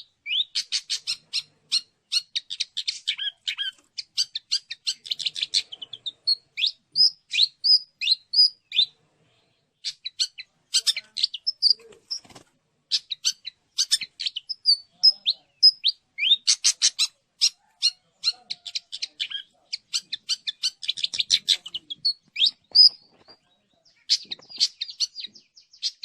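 Long-tailed shrike (cendet) singing: rapid chattering trills and varied short chirps in bursts, with brief pauses between phrases.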